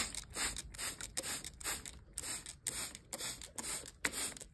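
Hand-held plastic trigger spray bottle squeezed over and over, misting water through a wire-mesh cage lid: a quick run of short hissing spritzes, about two to three a second.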